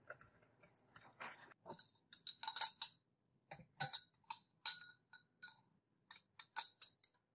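A metal spatula clinking and scraping against a glass jar while scooping dark granules: a string of irregular sharp clinks, some with a short ring, in several clusters.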